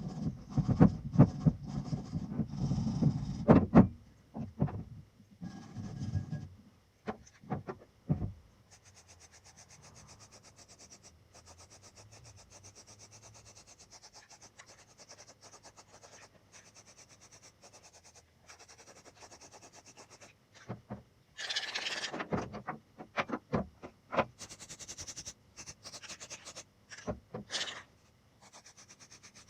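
Rubbing and scraping strokes on a part being cleaned up: loud rough scrubbing with knocks for the first few seconds, a long quiet stretch, then another run of rasping strokes near the end.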